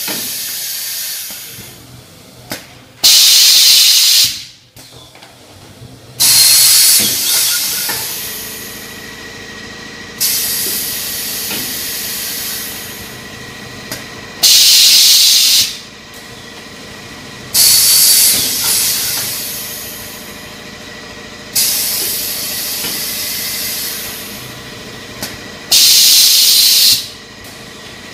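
Automatic baking-cup forming machine cycling, its pneumatic valves letting out loud hisses of compressed air about every three to four seconds. Some hisses are short; others start sharply and fade off slowly, over a faint steady machine hum.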